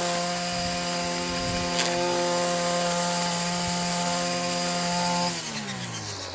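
Small two-stroke engine of a Hyper Tough string trimmer running steadily at full throttle with a high, even whine. About five seconds in, the throttle is let off and the pitch falls away toward idle.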